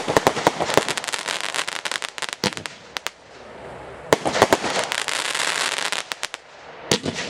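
Royal Fireworks 'Happy Family' firework going off with rapid sharp cracks and crackling. A dense volley fills the first two seconds, a few single cracks follow, then after a short lull a second dense volley runs from about four to six seconds in, and a couple of bangs come near the end.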